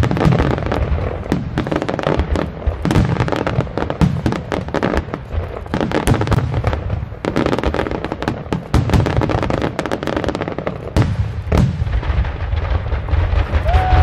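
Aerial fireworks shells bursting in rapid succession: many overlapping booms and crackles over a continuous low rumble.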